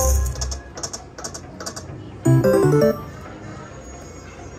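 All Aboard video slot machine's electronic sound effects: a low thud as a spin starts, an even ticking as the reels turn and stop, then about two and a half seconds in a short, loud run of stepped electronic notes as symbols land.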